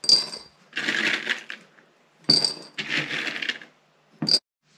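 Dried alder cones clattering inside a glass swing-top jar, in two rattling bouts. Sharp glassy clinks come at the start, between the bouts and once more near the end.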